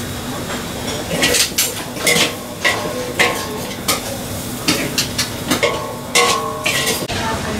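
Metal spatula scraping and clanking against a steel wok as rice vermicelli noodles are stir-fried, a quick run of about a dozen strokes starting about a second in, some leaving a short metallic ring.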